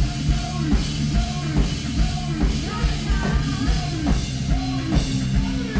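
Live rock band playing a song: a drum kit keeps a steady driving beat under electric guitar and the rest of the band, heard from the audience.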